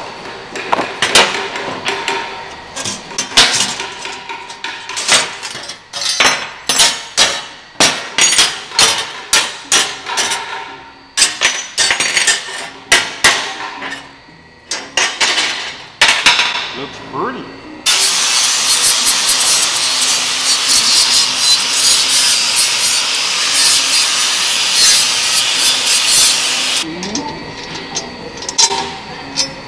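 Hammer striking a steel bracket on a metal workbench: a long series of sharp, irregular metal blows, one or two a second. About eighteen seconds in, a power tool takes over with a steady harsh hiss for about nine seconds, then stops.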